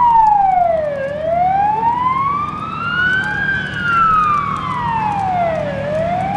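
Fire engine siren in a slow wail, the pitch falling, rising and falling again, about one full cycle over five seconds, over a steady low rumble.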